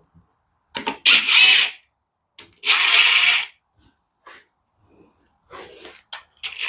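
Two bursts of rasping, hissy noise, each about a second long, from tool work on a disassembled 12A rotary engine, with a few fainter clicks and rustles after them.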